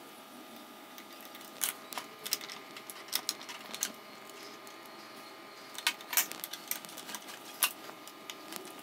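Scattered sharp clicks and metallic taps from hand tools working bolts and parts on an electric skateboard's front truck, coming singly and in quick little clusters.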